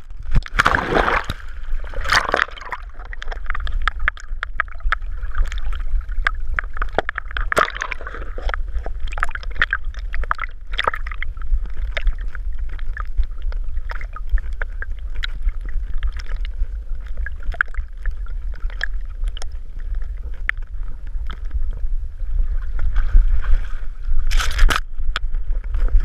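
Lake water splashing and gurgling around a camera strapped to a swimming dog, with a steady low rumble from the water against the housing. A big splash as the dog hits the water at the start, and another burst of splashing near the end as it reaches the shore.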